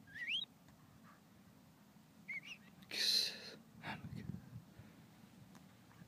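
Staffordshire bull terrier whimpering faintly: a few short, high, gliding whines near the start and about two seconds in, and a short breathy snuffle about three seconds in.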